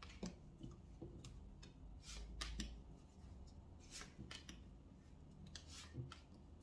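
Tarot cards being drawn one by one from a hand-held deck and laid on a table: a faint series of short slides and soft taps, card on card.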